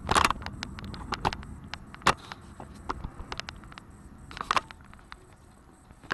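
Scattered raindrops tapping irregularly at the start of a thunderstorm, with wind rumbling on the microphone that eases after about three seconds.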